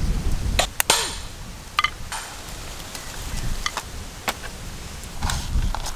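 Scattered sharp clicks and small cracks, spaced irregularly, from crab claws and shells being snapped apart by hand, over a low rumble.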